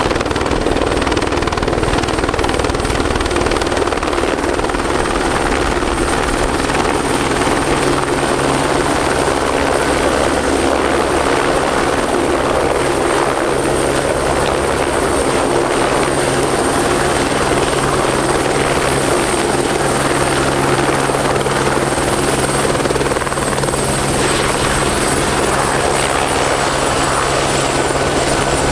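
Steady engine and road noise of a moving vehicle heard from inside it, a constant low hum under an even rush, with no break.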